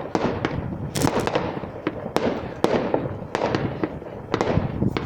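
Fireworks going off in quick succession: a rapid series of sharp bangs and crackling reports, each trailing off in an echoing tail.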